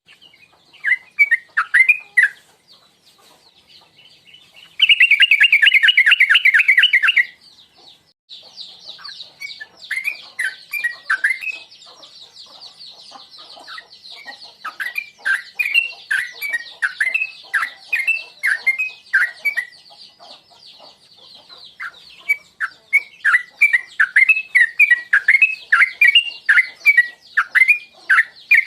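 Yellow-vented bulbul (trucuk) singing in bursts of short bubbly chirping phrases, with a loud rapid chatter about five seconds in lasting about two seconds. From about eight seconds a steady high buzz runs behind the phrases.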